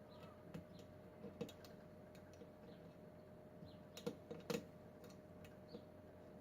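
Faint, irregular clicks and ticks of a lock pick and tension tool working the pins inside a Kwikset pin-tumbler lock, with a few sharper clicks about four seconds in.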